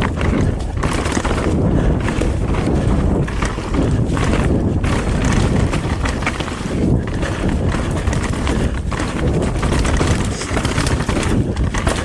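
Mountain bike riding over a rough dirt trail: continuous tyre and trail noise with frequent knocks and rattles from bumps, and wind buffeting the microphone.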